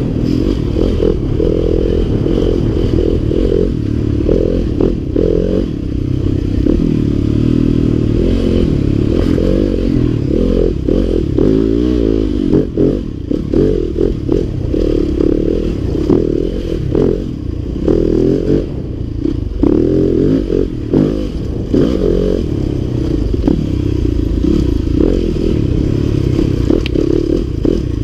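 Yamaha dirt bike engine running hard, the throttle opening and closing constantly, with knocks and rattles from the bike over rough ground.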